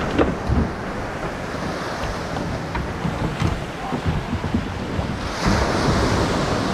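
Shore surf washing and foaming around a small boat's hull in the shallows, with wind buffeting the microphone and a few light knocks. A wave washes in louder near the end.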